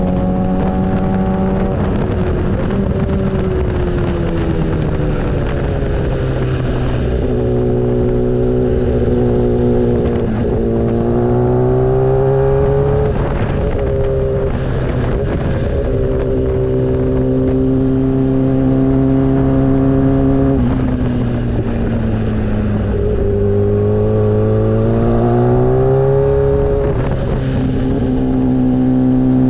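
Motorcycle engine running under way. Its pitch rises with throttle and drops back at gear changes several times: about 3, 10, 13, 23 and 27 seconds in.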